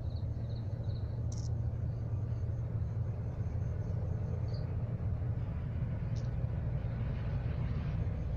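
Night-time outdoor ambience: a steady low rumble with insects chirping in rows of short high pulses over it, and two brief high clicks, about a second in and about six seconds in.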